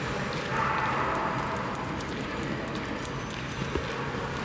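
Steady background din of a large indoor hall, with scattered light clicks and footsteps.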